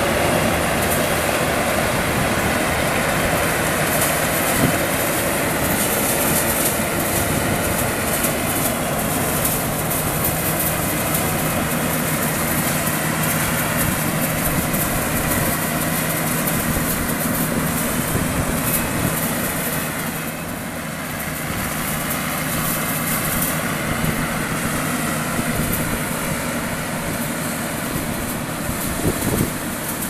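Yanmar YH850 rice combine harvester running, its engine and machinery making a loud, steady mechanical drone with a few short clacks. The level dips briefly about two-thirds of the way in.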